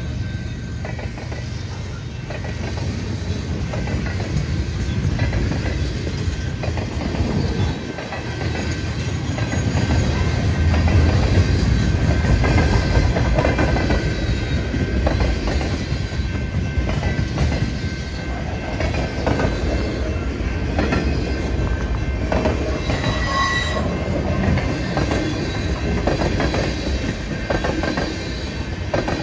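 Freight cars of a fast-moving freight train, tank cars and covered hoppers, rolling past with a steady rumble and their wheels clicking over the rail joints.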